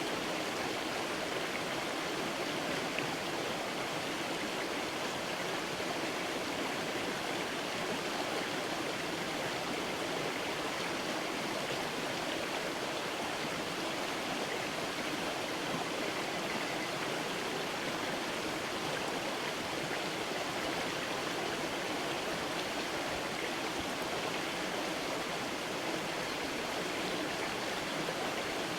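Creek water rushing steadily over stones, an even, unbroken flow.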